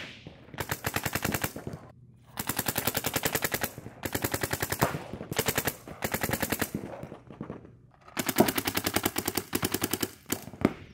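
Paintball markers firing in rapid strings of shots, several bursts of many shots a second separated by short pauses.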